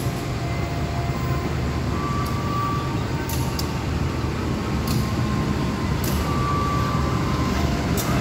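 Diesel locomotive of an approaching passenger train running in slowly, a steady low engine rumble that grows a little louder toward the end, with a few short clicks.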